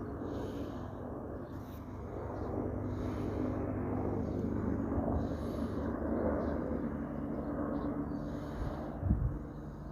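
Helicopter flying overhead: a steady low drone that grows louder through the middle and then eases off, with a short low thump near the end.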